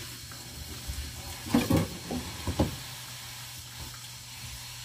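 A short cluster of knocks and rustles from washed lettuce being handled and shaken to drain, about a second and a half in, over a steady faint hiss.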